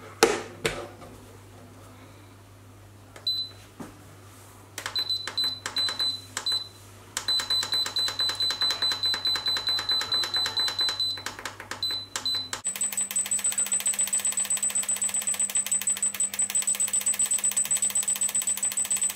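Instant Pot Duo Crisp control panel beeping as its buttons are pressed. A few single beeps, then a fast, even run of ticks with a high beep tone, about five or six a second, as the temperature button is held and the setting counts up. A knock near the start is the loudest sound.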